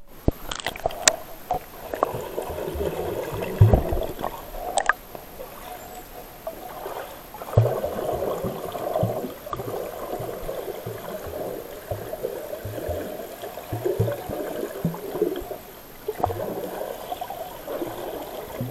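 Muffled underwater pool sound picked up by an action camera held below the surface: water sloshing and gurgling around the camera as a swimmer strokes past, with irregular low thumps and a few sharp clicks in the first five seconds.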